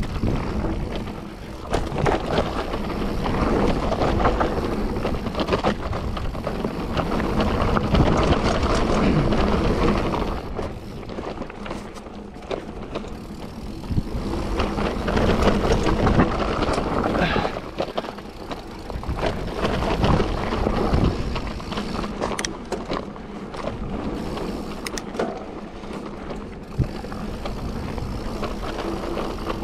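Mountain bike ridden over a wet trail: a steady rush of tyre and riding noise that swells and eases every few seconds, with many sharp knocks and rattles as the bike goes over bumps.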